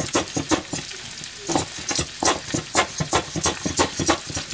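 Food frying in a pan: a steady sizzle broken by sharp pops and clicks, three or four a second, with a short lull about a second in.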